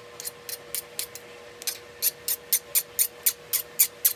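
A metal file scraped in short, quick strokes across a freshly quenched O1 tool steel knife blade to test its hardness, about three to four rasping strokes a second from about halfway through. The black carbon scale on the surface files a little soft.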